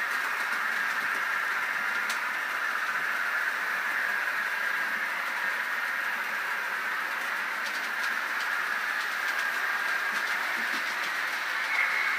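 Electric model train running on the layout's track: a steady whirr of the locomotive's motor and wheels, with a few faint ticks. The whirr gets slightly higher and louder near the end as the locomotive comes into view.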